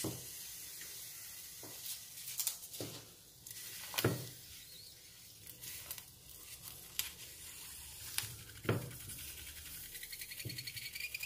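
Peppers, tomatoes and garlic sizzling softly as they roast in a hot shallow iron pan, with scattered light knocks as the vegetables are turned by hand against the metal.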